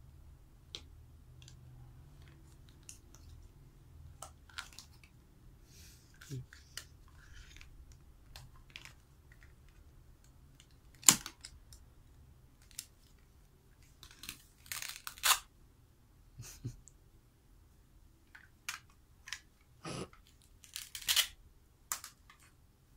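Plastic toy food pieces and a plastic toy knife clicking and knocking together as they are handled, in scattered light taps with a sharp click about eleven seconds in and short clusters of knocks near the middle and end.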